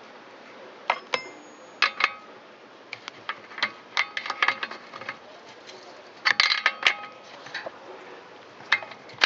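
Irregular sharp metallic clicks and clinks, some ringing briefly, in small clusters: hand tools and metal parts knocking together while the spark plug goes back into the trimmer engine.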